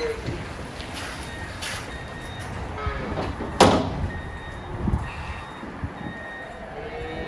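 Metal clanks and bangs of a livestock trailer being opened and its slatted loading ramp let down, over a steady low vehicle rumble. The loudest is a sharp bang about three and a half seconds in, followed by a heavy thud near five seconds.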